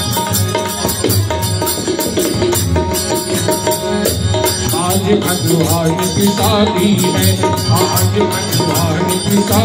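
Indian devotional bhajan music with a steady drum beat. About halfway in, a wavering melody without words comes in, sung into the microphone.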